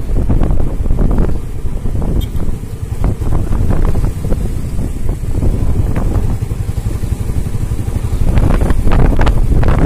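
Wind buffeting a phone's microphone: a loud, uneven rumble in gusts, easing a couple of seconds in and picking up again near the end.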